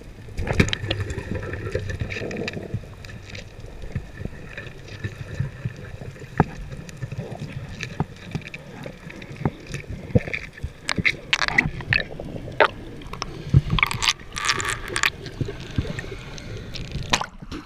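Underwater sound picked up by a camera in its waterproof housing on a reef: a muffled low water rumble with many scattered sharp clicks and crackles, and a few louder rushing bursts in the second half.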